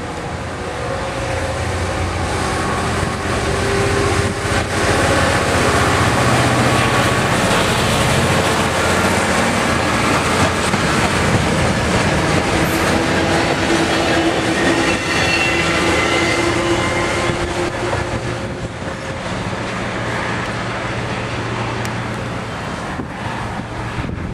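Two DRS Class 66 diesel locomotives, EMD two-stroke V12 engines working hard, hauling nuclear flask wagons through a station at speed, with the wheels clicking and rumbling over the rails. The sound builds as the leading locomotive approaches, is loudest as it and the wagons pass, and eases off near the end as the rear locomotive goes away.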